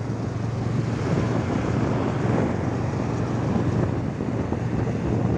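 Steady wind buffeting the microphone of a moving motorcycle, with the motorcycle's engine running evenly underneath.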